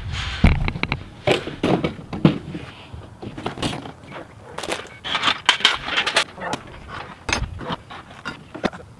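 Metal stage-frame pipes clanking and scraping as the stage is dismantled and the parts are laid on the ground: a string of irregular sharp metallic knocks.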